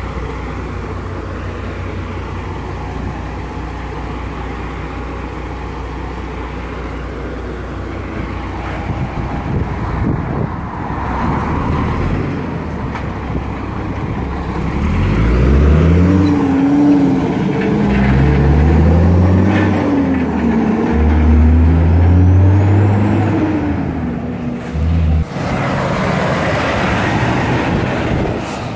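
Diesel log truck engines: a steady idle, then a heavy truck accelerating, its engine pitch climbing and dropping back several times as it shifts up through the gears, loudest in the middle; a loaded log truck passes close near the end.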